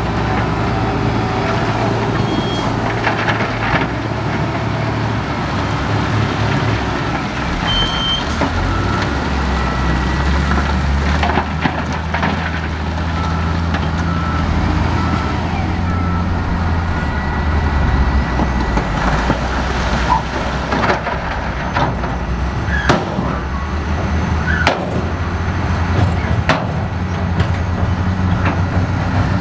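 Heavy diesel earthmoving machinery working: a low engine running steadily, its pitch shifting several times, with scattered knocks and clanks.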